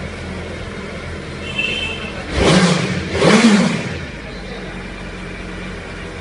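Suzuki Hayabusa's inline-four engine on its stock exhaust, idling steadily, then blipped twice about a second apart, each rev rising and falling back to idle.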